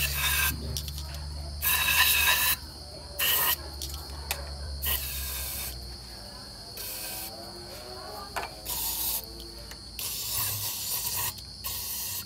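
Aerosol cleaner sprayed through a straw into the idle-air passage of a throttle body, in about eight short hissing bursts that stop sharply.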